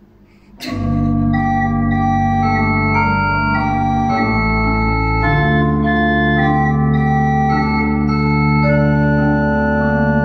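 Organ music: sustained chords come in about half a second in and are held, with a low bass line moving beneath them.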